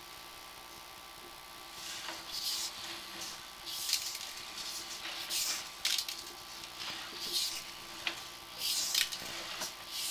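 Sewer inspection camera's push cable being fed into the line: irregular rubbing swishes starting about two seconds in, over a steady faint hiss and hum from the camera system.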